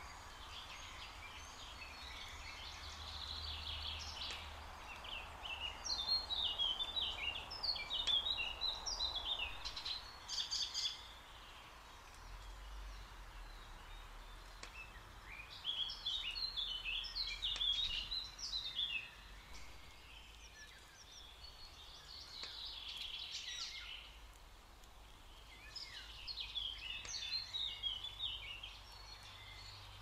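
Wild songbirds singing: a quick run of high chirping notes comes three times, roughly every ten seconds, over a faint steady background hiss.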